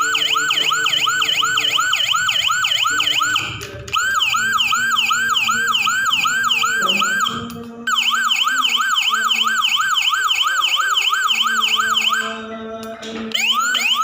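Multi-tone electronic siren module playing fast sweeping siren tones, about three to four sweeps a second, in the style of Whelen, Senken and Landun sirens. It switches to a new tone about every four seconds, with a brief drop between tones.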